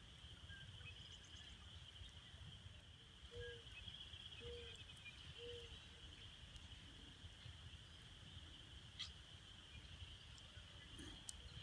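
Faint, steady high-pitched chorus of distant frogs, with three short low calls about a second apart a few seconds in and a couple of faint pops from a small wood fire near the end.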